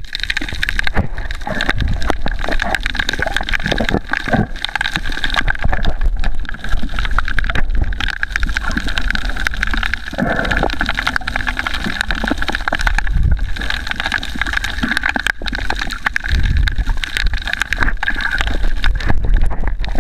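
Water heard underwater through a snorkeller's camera: muffled sloshing and gurgling with many small clicks and knocks, a few low swells of rumble, and a steady high whine throughout.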